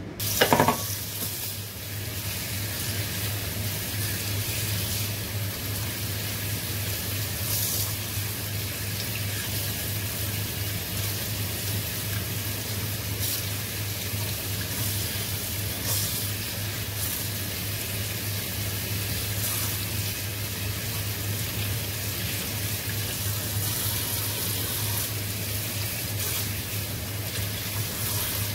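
Tap water running steadily into a sink over squid tentacles in a plastic colander as they are rinsed and rubbed by hand, with a low steady hum under it. A single sharp knock about half a second in.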